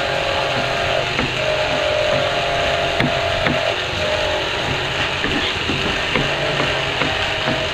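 Kitchen knife cutting through tomatoes and tapping on a plastic cutting board, a scatter of soft clicks, under a steady machine-like drone that carries a faint hum.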